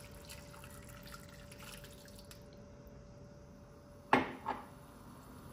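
Hot water poured from a glass mug onto raw meat chunks in a cast-iron pan, quietly splashing and trickling for about the first two seconds. About four seconds in come two sharp knocks, half a second apart.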